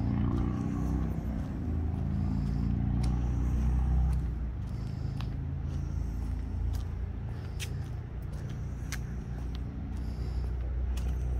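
Road traffic passing on a busy street. A vehicle's engine hum builds to its loudest about four seconds in and fades, leaving a steady traffic rumble with a few faint sharp ticks.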